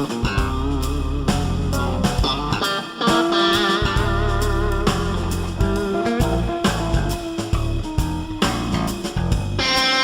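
Background music: blues-rock with guitar leads, bass and a steady drum beat.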